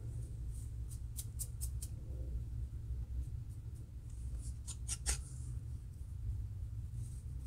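Long fingernails scratching a dry, flaky scalp between locs, lifting dandruff: short, quick scratching strokes, a run of four about a second in and another quick cluster around five seconds in.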